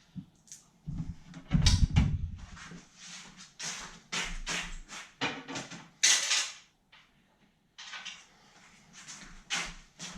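Taking the tempered-glass side panel off a PC case: a string of irregular knocks, clicks and scrapes of the panel and case being handled, loudest about two seconds in and again about six seconds in.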